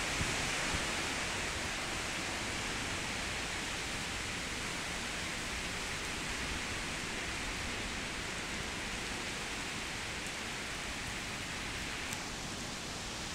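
Heavy rain and strong wind in a storm: a steady, dense hiss of rain, with uneven rumbling from gusts on the microphone.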